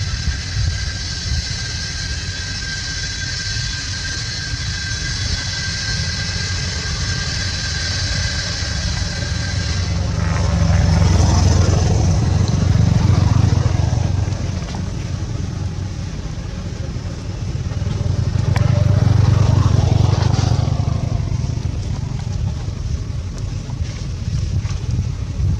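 Two motor vehicles pass by one after the other, each swelling up and fading away, with a deep rumble and a sliding pitch. A steady high-pitched whine runs under the first ten seconds and then stops.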